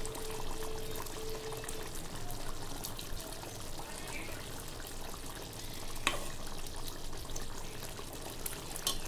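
Thick chicken curry gravy pouring and dripping off a steel ladle back into a steel pot, over a steady hiss, with a single sharp click of the ladle against the pot about six seconds in.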